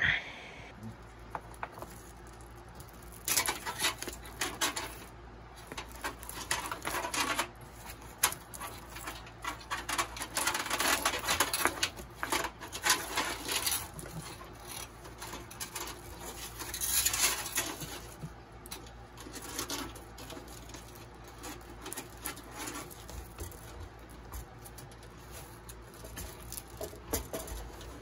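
Handling noise from fitting a PC power supply and its bundled power cables into a computer case: irregular bursts of rustling, light knocks and scrapes, with a low steady hum underneath.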